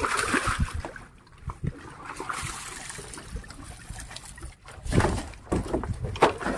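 Water splashing and trickling, with a few sharp knocks about five to six seconds in.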